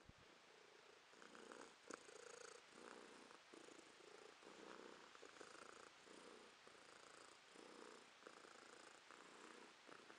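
A domestic cat purring faintly right at the microphone, the purr swelling and easing in an even rhythm with each breath. There is one small click about two seconds in.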